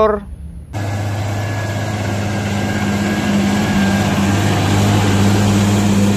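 CLAAS Arion tractor's diesel engine running steadily as the tractor pulls a plough, starting about a second in.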